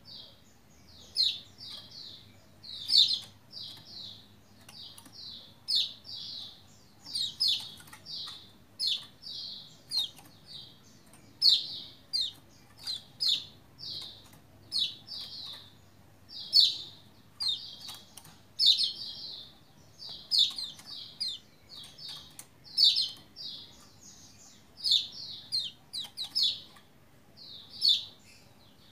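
White-eye chirping in quick clusters of short, high notes, a burst of two to four chirps every second or so.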